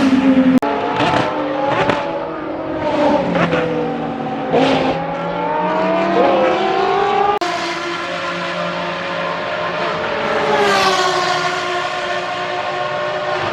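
Ferrari 599XX's V12 race engine downshifting, its pitch stepping and falling, with sharp cracks from the exhaust over the first few seconds. After that it runs on at high revs, rising again as it pulls away.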